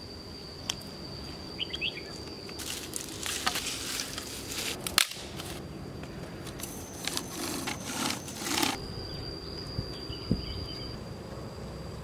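A steady high insect drone, broken twice by about two seconds of rustling and clattering; the second stretch comes from dry sticks being handled. A single sharp click falls in between.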